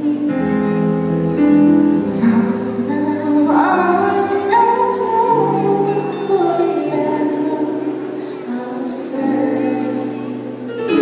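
A female vocalist singing live into a microphone, accompanied by keyboard and band.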